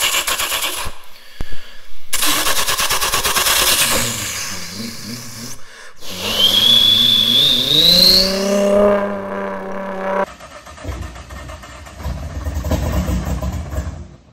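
A man's voice imitating a Nissan GT-R cold start, made with the mouth into a paper-towel tube over a microphone: a stuttering cranking rasp, then a high whine climbing in pitch over a low drone that rises to a steady note and cuts off about ten seconds in, then a lower rumbling idle.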